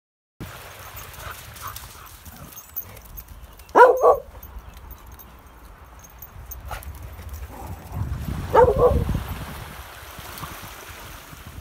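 A dog barking in two short bursts about five seconds apart, the first about four seconds in and the second a little before nine seconds in, over a low rumble of wind on the microphone.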